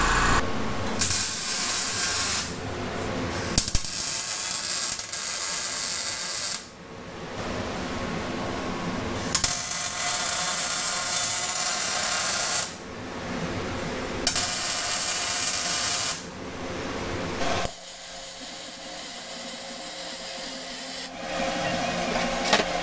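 Steel tubing being cut and MIG-welded: a string of short stretches of power-tool noise and welding crackle, each starting and stopping abruptly, with a few sharp clicks.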